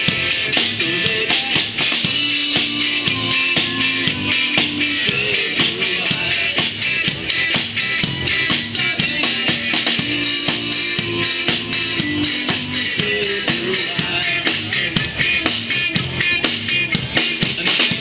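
A live band playing, with a drum kit keeping a steady, busy beat under guitars.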